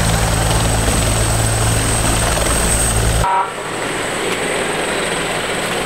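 Helicopter running nearby: a loud, steady low rotor drone with a fast chop and a high turbine whine. About three seconds in it cuts off abruptly to a quieter, even rumble of a vehicle driving, heard from inside the ambulance.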